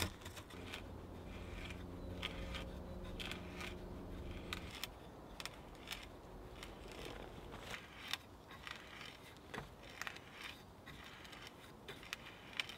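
Scotch-eyed barrel hand auger being turned through a wooden rail, its blade and flukes cutting and lifting the wood with a run of quiet, irregular crackles and creaks. A faint low steady hum sits under it for the first few seconds.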